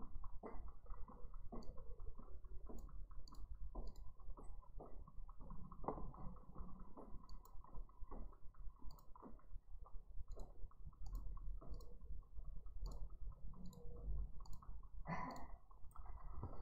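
Faint, irregular clicking and tapping, many small strokes in quick uneven succession, close to the microphone in a small room.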